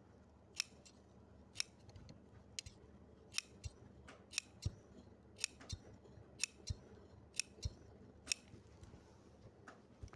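Tailor's scissors snipping small clips into the seam allowance of a stitched curved neckline, one short crisp snip at a time, a little over one a second and often in quick pairs. The snips are faint.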